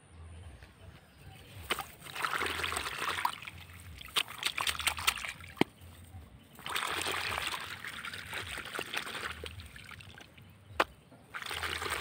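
A hand splashing and swishing a silicone pop-it toy through shallow muddy paddy water, in three or four bouts of splashing. A few sharp clicks come between the bouts.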